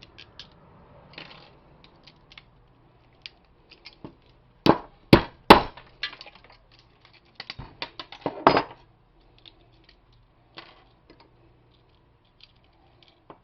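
Small metallic clinks and taps from the brass and metal parts of a wall outlet being worked apart. About a third of the way in come three loud knocks close together, and a little later another run of clinks ends in one loud knock.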